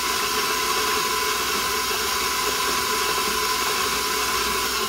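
KitchenAid Professional stand mixer running steadily, its flat beater mixing a wet batter in the steel bowl: an even motor whine over a steady hiss.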